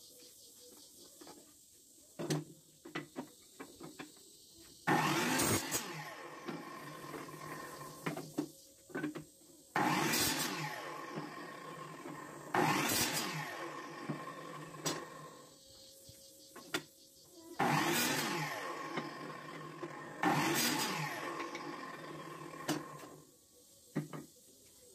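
Sliding compound miter saw cutting wood five times a few seconds apart: each run starts suddenly as the motor spins up and the blade bites, then falls in pitch as the blade coasts down. Light knocks of wood being set against the saw's fence between cuts.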